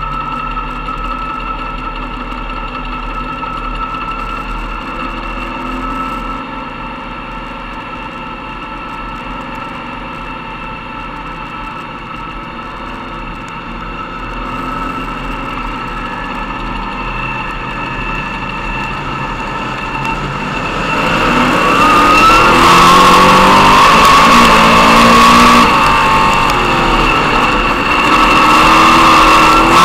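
Modified race car's V8 engine heard from inside the cockpit: running steadily at low revs for about twenty seconds, then revved much harder and louder, its pitch climbing and dipping as the car picks up speed.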